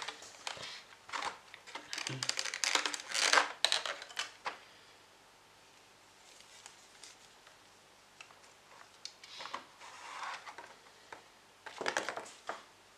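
Clear plastic blister packaging and film wrap crinkling and clicking as they are handled and pulled off a model locomotive tender, in irregular bursts over the first four seconds or so and again near the end, with a quiet stretch in the middle.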